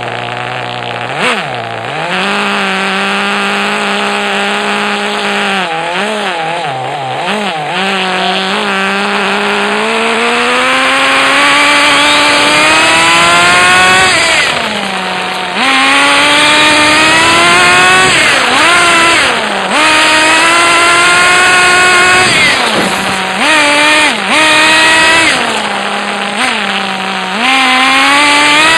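Radio-controlled car's motor, heard close up from a phone strapped onto the car, revving as it drives. Its pitch climbs for several seconds, drops back sharply, and climbs again, with a few brief dips near the end.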